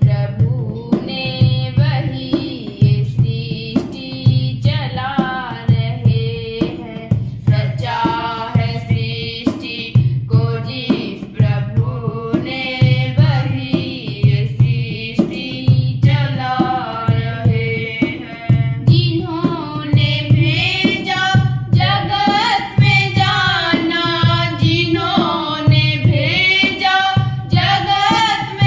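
A woman singing a Hindi devotional song (bhajan) over a steady drum beat. The voice becomes more ornamented about two-thirds of the way through.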